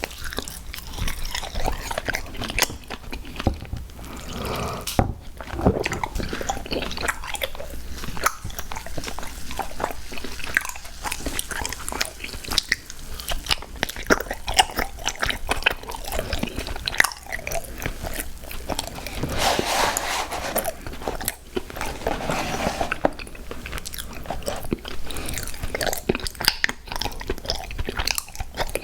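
A person biting and chewing sweets close to the microphone: a dense, continuous run of small crunches and mouth clicks.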